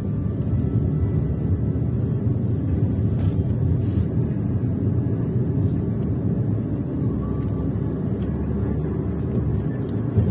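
Steady low rumble of a vehicle's engine and tyres on the road, heard from aboard as it drives along a street.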